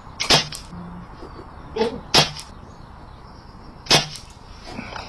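Air rifle shots at the range: three sharp, short cracks, a little under two seconds apart.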